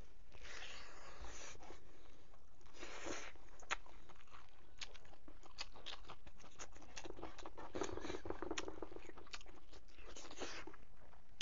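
Close-up eating with the bare hand from a wooden plate: a soft rustle of fingers scooping rice, then steady close chewing with many wet mouth clicks and smacks.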